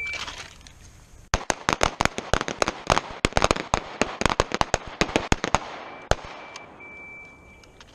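A line of shooters firing handguns in rapid, overlapping shots, starting about a second in and thinning out after about five seconds. A shot timer's start beep ends right at the beginning, and a fainter timer beep sounds near the end.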